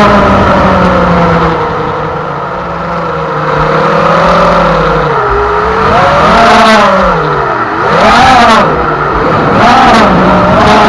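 High-speed radio-controlled boat motor whining at full throttle, its pitch sliding slowly down, then rising and falling in repeated swoops as the boat speeds past and turns.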